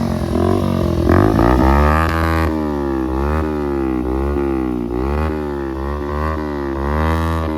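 Motorcycle engine running with its exhaust removed, open-piped. The revs rise and fall over and over in an even rhythm, a little faster than once a second.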